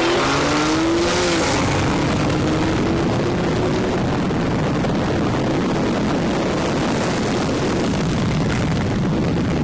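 Twin-turbo V10 Lamborghini Gallardo and turbocharged Porsche 911 Turbo S racing at full throttle side by side. The engine note climbs, drops at a shift about a second in, and climbs again, all under heavy wind rush at speed.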